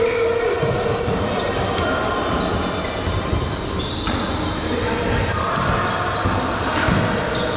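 Dodgeball game in a large hall: balls bouncing and hitting, with players' voices calling out and short high squeaks throughout, all echoing.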